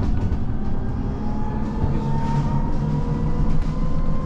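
City bus running, heard from inside the passenger cabin: a steady low drone of engine and road noise, with a thin whine rising slowly in pitch across the few seconds.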